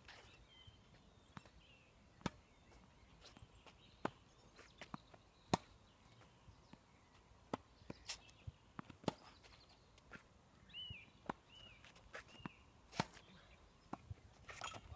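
Tennis rally: sharp pops of rackets striking the ball and the ball bouncing on the court, coming a second or more apart at an uneven pace, the loudest about five seconds in.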